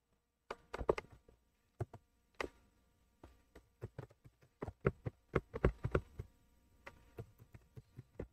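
Computer keyboard typing: short, sharp key clicks in irregular bursts, busiest in the middle.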